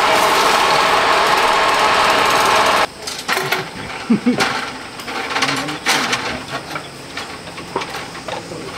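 A loud, steady motor or engine runs for about the first three seconds and cuts off abruptly. After that come light, scattered metal clicks and taps of steel rebar being tied with wire.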